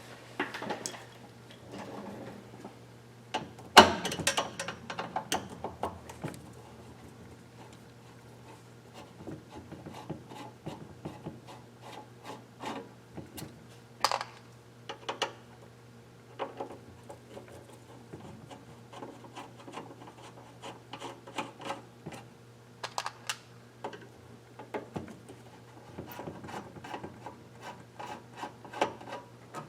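Hands and tools working a circuit board out of an electronics unit's housing: scattered small clicks, scrapes and rubbing, with sharper knocks about four and fourteen seconds in. A steady low hum runs underneath.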